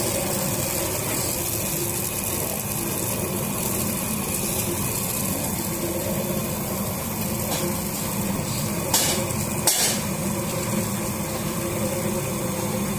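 A 200 kg puffed-rice (muri) machine running, with puffed rice tumbling and rattling through its rotating perforated steel sieve drum in a steady hissing rattle. Two brief knocks come about nine and ten seconds in.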